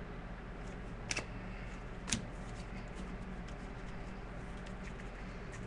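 Steady low room hum with a few faint short clicks, the clearest about one and two seconds in.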